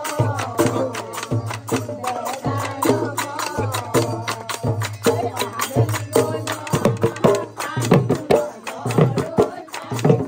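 Group folk singing in Assamese style, accompanied by a dhol drum beating about once a second and rapid sharp percussion strokes such as clapping.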